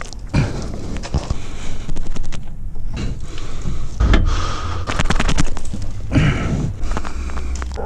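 Scrapes, knocks and heavy thuds of a person clambering down through a small roof skylight hatch, hands and body rubbing and bumping against its metal frame. The loudest thuds come about four seconds and about six seconds in.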